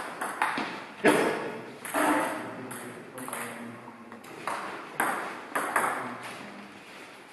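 Table tennis ball clicking off bats and the table in a rally, each sharp hit echoing in the hall. The loudest hit comes about a second in, and lighter, sparser taps follow near the end.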